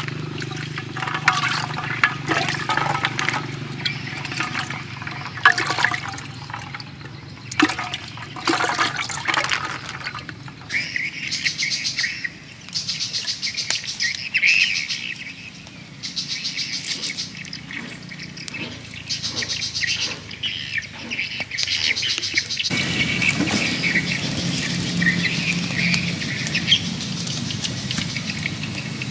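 Water splashing and sloshing as live snails are handled in a clay pot of water, then birds chirping and trilling from about ten seconds in. A steady low rush comes in suddenly about three-quarters of the way through.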